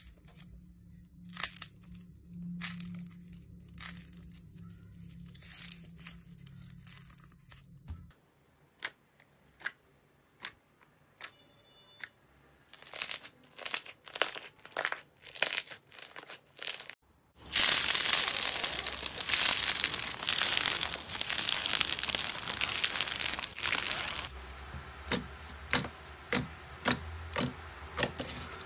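Hands squeezing, pressing and poking glossy slime: a string of sharp, sticky pops and clicks, broken past the middle by about six seconds of loud, dense crackling, then more pops.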